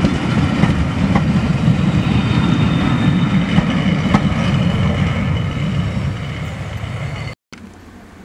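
Train of passenger coaches rolling past at close range: a steady rumble of wheels on rail with a few faint clicks over rail joints, easing off near the end. About seven seconds in it cuts off suddenly to a much quieter, even background hiss.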